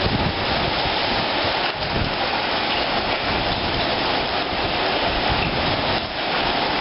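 Heavy rain pouring steadily in a tropical storm, with strong wind gusting in the low end.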